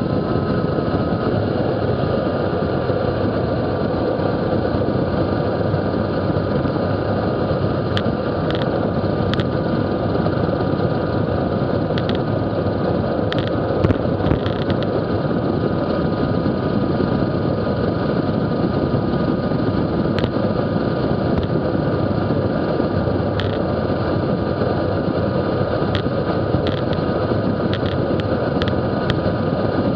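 Wind rushing over the microphone of a bike-mounted action camera on a fast road-bike descent at about 40 mph, mixed with tyre noise on the asphalt. Scattered short clicks and taps come through now and then.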